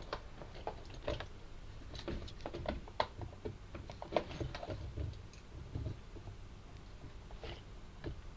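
Light, irregular clicks and taps, close together for the first five seconds or so and then only a few.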